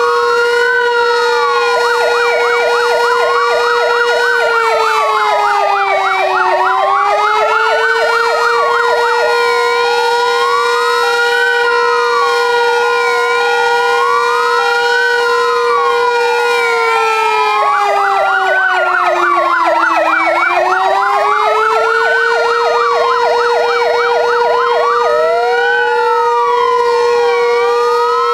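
Several fire-brigade sirens sounding together. A steady siren tone sags in pitch twice. Over it, wailing sirens sweep up and down every few seconds, with two long stretches of rapid yelp. The brigade's siren is a modulated one rather than a plain steady wail.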